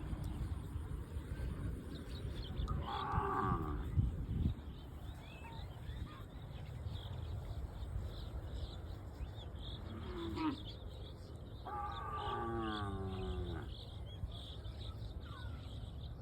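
Cattle mooing: three moos that fall in pitch, the longest about two seconds long in the second half.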